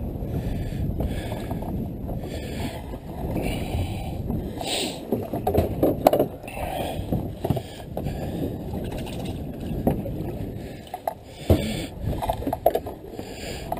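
Sea water lapping and splashing against the fiberglass hull of a drifting center-console fishing boat, over a steady low rumble, with a few short knocks on the boat.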